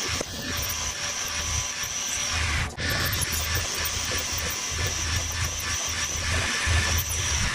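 A power tool running with a steady high whine over a low, uneven rumble, broken off briefly about three seconds in.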